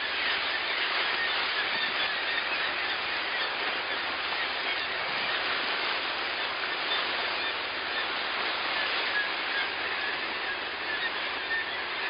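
Steady rushing noise of a boat under way: engine and water from the wake, with no breaks.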